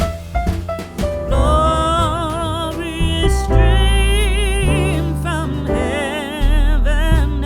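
Background music: a slow song, with a voice holding long notes with a wide vibrato over a keyboard and bass accompaniment.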